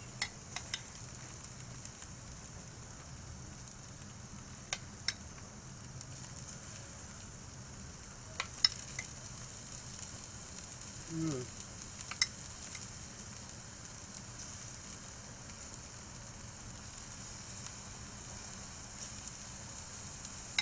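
Chicken sizzling on a grill, a steady high hiss, while the mushroom Gruyere topping is spread over it. A utensil clicks sharply against the grill several times.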